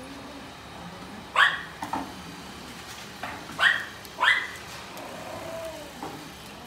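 A dog barking sharply: once about a second and a half in and twice more around four seconds in, with a few softer barks between. Under the barks, electric dog clippers run steadily on the terrier's paw.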